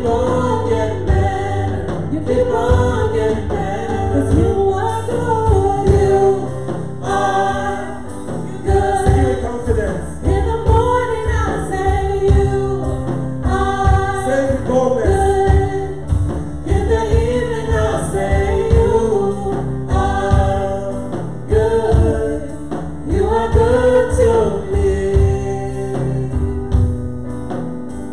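Live gospel worship song: a small group of singers, male and female voices, sings together into microphones, backed by keyboard and a drum kit keeping a steady beat.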